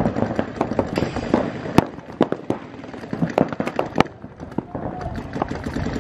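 Paintball markers firing in rapid, irregular strings of sharp pops. The shots are thickest at the start, thin out in the middle and pick up again near the end.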